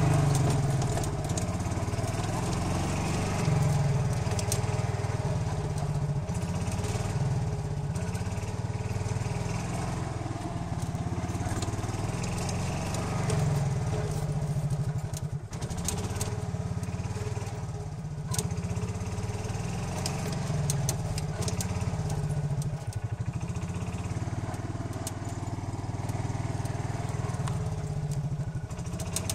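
Golf cart engine running steadily as the cart is driven slowly, with scattered clicks and rattles.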